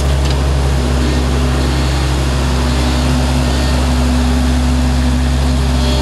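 Engine of an Avant 635 compact loader running steadily at working speed while the loader scoops soil and lifts the full bucket on its boom.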